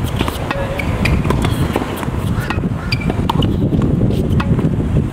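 Tennis ball struck with rackets in a net volley exchange: a string of sharp pops at an uneven pace, over a steady low wind rumble on the microphone.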